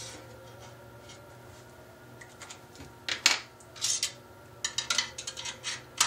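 Long hex screwdriver working the mounting screws of a Mac Pro CPU heat sink: scattered short metallic clicks and scrapes begin about two seconds in, with a louder click a little after three seconds and a quick run of clicks near the end.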